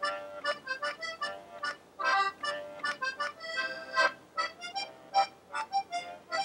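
Background accordion music: a melody of short, quick notes.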